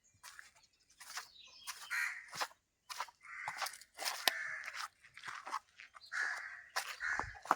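Crows cawing at intervals over a run of sharp crunching clicks.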